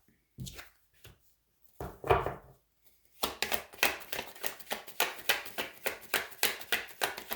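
Tarot deck being shuffled by hand: a quick run of card slaps and clicks, about four a second, starting about three seconds in after a few soft handling noises.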